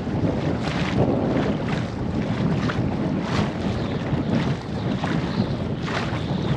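Strong wind buffeting the microphone over choppy water, with irregular splashing and sloshing as a wader moves quickly through the water.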